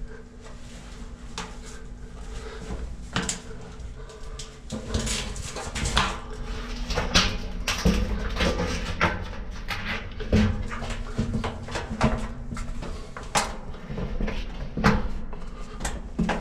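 Irregular knocks, thumps and scrapes of a person crawling on hands and knees through a corrugated metal escape tunnel, echoing in the tube, growing busier about five seconds in.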